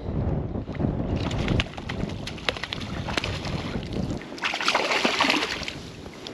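A hooked trout splashing at the surface as it is played in on a fly rod, with wind buffeting the microphone for the first four seconds. The loudest splashing comes about five seconds in, as the fish is brought to the landing net.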